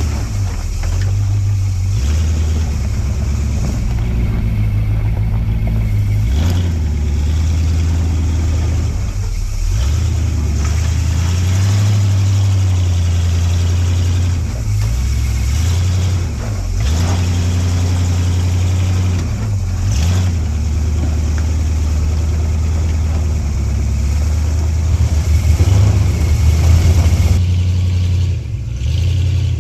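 A four-wheel-drive vehicle's engine running at low revs, its pitch rising and falling repeatedly as the throttle is worked, a little louder near the end.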